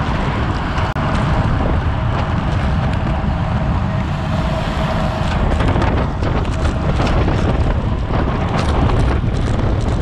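Wind rushing and buffeting over a bicycle-mounted camera's microphone as the bike moves, a loud, steady roar of noise with a brief dropout about a second in.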